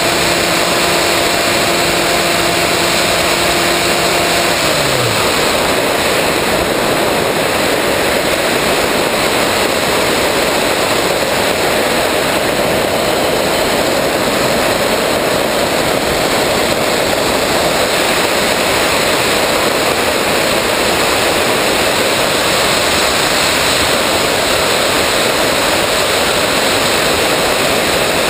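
Steady rush of wind over the onboard camera of an electric RC plane, with the electric motor and propeller giving a steady hum at first. About five seconds in, the motor is throttled back and its tone drops away, leaving only the wind noise.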